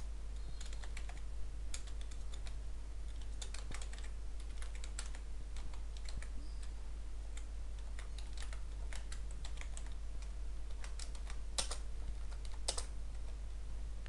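Typing on a computer keyboard: irregular keystroke clicks, some in quick runs, over a steady low hum.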